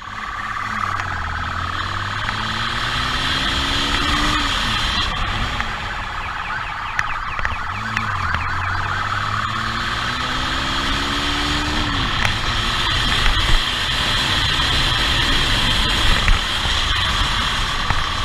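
Motorcycle engine pulling hard at speed over wind and road rush, its pitch climbing and then dropping at a gear change twice. A siren sounds steadily over it.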